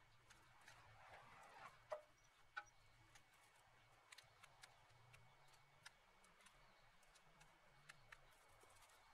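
Near silence, with faint scattered snaps and rustles of dry brush branches being pulled from a pile by hand, two slightly sharper snaps about two seconds in.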